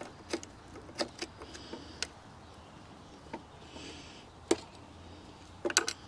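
Scattered light clicks and taps of a hand tool and metal parts as screws are worked out of an electric unicycle's roll-cage bars. They come about once a second, with a quick cluster near the end.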